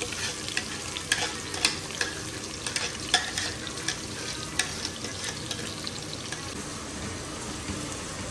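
Chopped onions sizzling as they fry in hot oil in a saucepan, with sharp clicks and taps of a spoon and the onion container against the pot, most of them in the first half, then wooden-spoon stirring.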